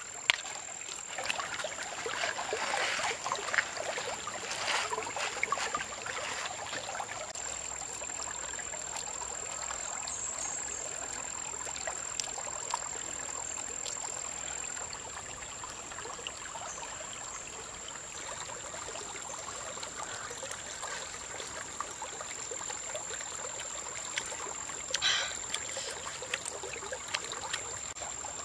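Shallow stream trickling and rushing over pebbles, with a thin, steady high-pitched whine over it and some light crackling in the first few seconds.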